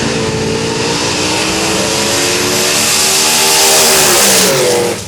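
Drag-racing truck engine at full throttle during a pass, its pitch climbing steadily and growing louder, then wavering about four seconds in. The sound drops off suddenly just before the end.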